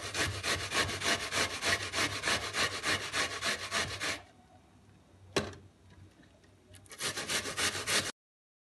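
An onion being grated by hand on a stainless steel box grater: rapid, regular rasping strokes. The strokes stop about four seconds in, a single sharp click comes about a second later, and the grating starts again near the end.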